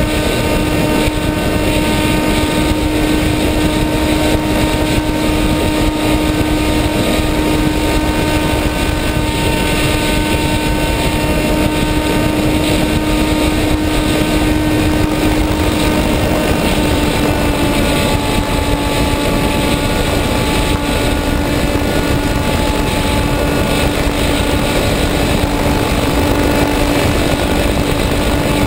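Motor and propeller of a radio-controlled FPV model aircraft running steadily at full flight, with a constant whine over heavy rushing air noise. The pitch drops slightly about two-thirds of the way through as the throttle eases.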